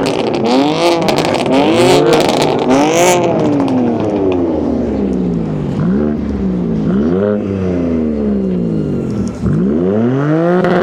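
A performance car's engine being revved hard and repeatedly on a soundcheck: a run of quick blips with sharp crackles in the first three seconds, then slower rises and falls, and a strong rev climbing near the end.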